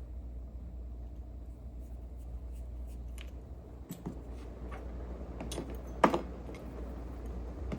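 Small metallic clicks and scrapes of a lock being taken apart by hand with tools, with one louder clack about six seconds in, over a steady low hum.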